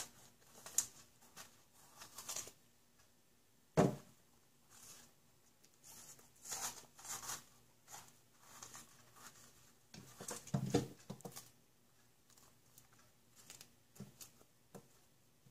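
Fingers scraping the seeds and spongy pith out of a halved bitter melon: soft, irregular wet scraping and crackling. A dull knock about four seconds in is the loudest sound, with another around ten seconds in.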